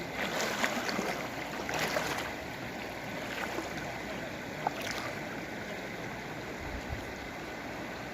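Hill river flowing over rocks: a steady rush of water, with a few brief louder bursts in the first two seconds.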